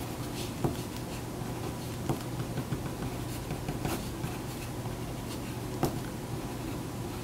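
Pen writing on sheets of paper on a table: irregular short scratching strokes and light taps, over a steady low room hum.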